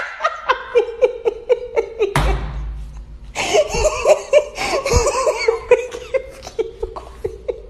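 A person laughing hard in rapid, high-pitched bursts, in two bouts with a short break of about a second around two seconds in.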